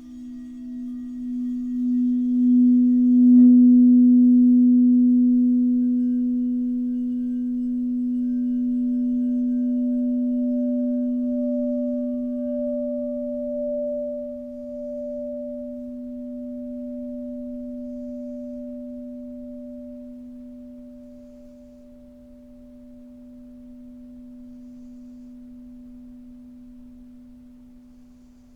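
A singing bowl sounding one low sustained tone with a few higher overtones. It swells in waves over the first three seconds, gives a light click about three seconds in, then rings on and fades slowly, with a faint wavering in the upper tone.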